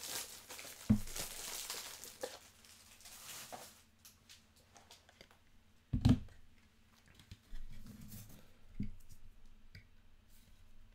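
Crinkling and rustling of plastic for the first few seconds, then scattered soft knocks and handling sounds as a trading card is slipped into a clear plastic sleeve and rigid toploader. The loudest knock comes about six seconds in.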